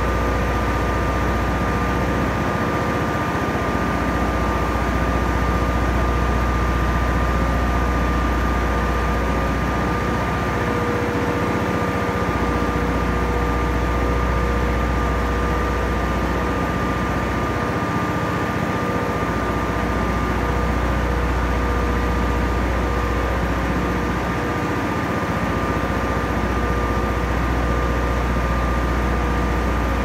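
Caterpillar generator set's engine running steadily: a constant loud drone with a steady high whine over it.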